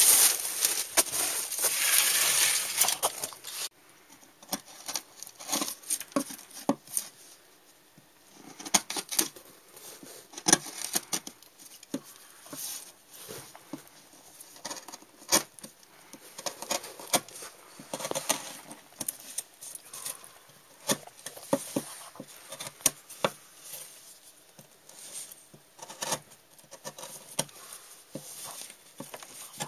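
Wood carving: a wooden mallet tapping the handle of a carving gouge as it cuts into a wooden board, giving irregular sharp knocks, sometimes several in quick succession, with the crisp sound of the blade cutting wood. For the first few seconds a loud steady hiss plays, then cuts off suddenly.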